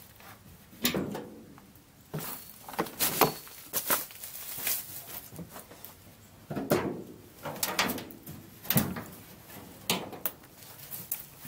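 Footsteps crunching and rustling through dry bamboo leaves, with irregular crunches every second or so.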